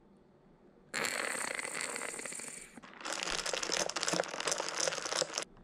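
After a quiet second, rustling, scraping noise in two stretches, the second full of quick small scratches: a straw stirring whipped dalgona coffee foam down into the milk in a glass.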